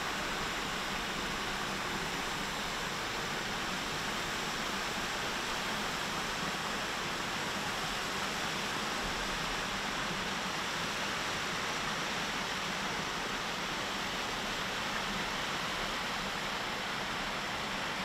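Small stream cascade rushing steadily over rock ledges into a pool, an even, unbroken sound of falling water.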